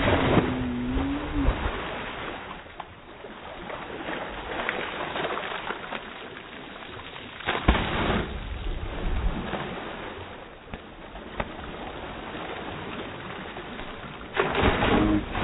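Slowed-down splashes of swimmers diving head-first into the sea: one at the start, another about eight seconds in and a third near the end, over a steady wash of water and wind. A low, drawn-out tone gliding in pitch sounds with the first and last splash.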